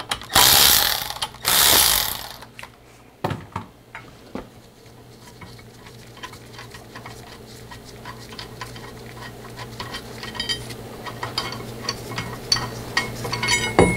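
Power ratchet running in two short, loud hissing bursts as it spins out the bolts holding a pinion-flange holding tool, followed by many small metallic clicks and clinks as the bolts and tool are worked off the flange by hand.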